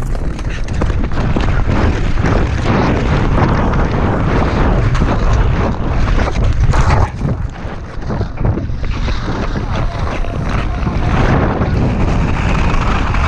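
Rushing wind on a helmet-mounted action camera's microphone, with ice skate blades scraping and chopping on the icy downhill race track at speed.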